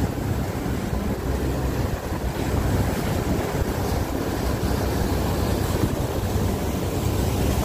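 Motorboat running at speed, its propeller wash churning the wake in a steady rush of water, with wind rumbling on the microphone.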